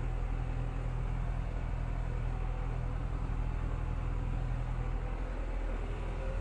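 Tractor engine running steadily under load, a constant low hum while it pulls a tedder and drives it through the PTO at the 540 economy setting, heard from inside the cab.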